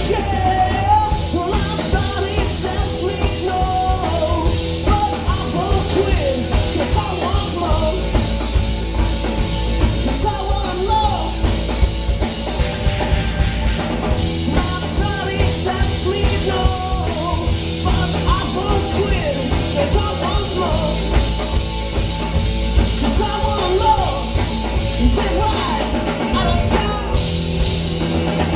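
Live rock band playing amplified: electric bass, electric guitar and a drum kit, with sung vocals over them.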